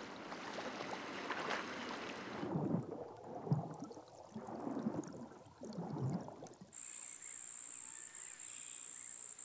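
Sea water splashing and washing at the surface, giving way to softer, muffled swells of water. About seven seconds in, it cuts to a steady high-pitched insect trill.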